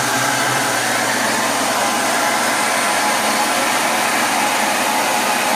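Hair dryer blowing steadily: a constant rush of air with a low hum underneath.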